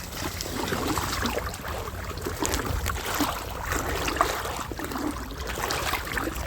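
Someone wading through a shallow river: water sloshing around the legs, with irregular small splashes and knocks under a steady low rumble.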